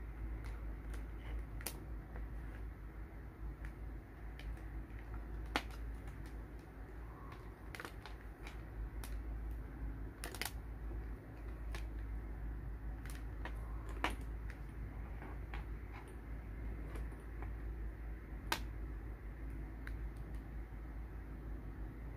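Scattered light clicks and taps of multimeter test leads, alligator clips and a plastic USB tester being handled on a wooden tabletop, over a steady low hum.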